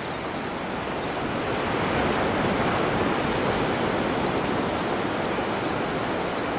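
Steady wash of ocean surf breaking on a sandy beach, growing a little louder about two seconds in.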